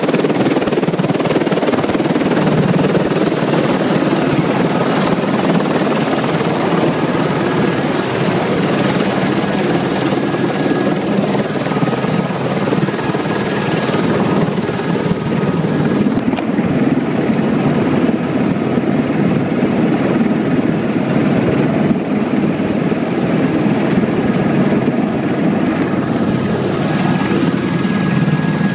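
Turbine helicopter running on the ground: a loud, steady rotor and engine noise with a thin high turbine whine over it. The sound turns duller from about halfway through, heard from inside the cabin.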